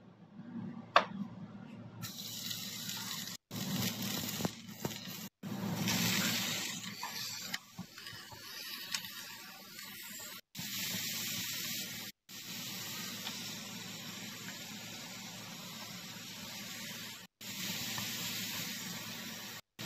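Oil sizzling in a frying pan as onions and then diced chicken fry and are stirred with a spatula: a steady frying hiss that cuts out briefly several times. A single sharp click about a second in.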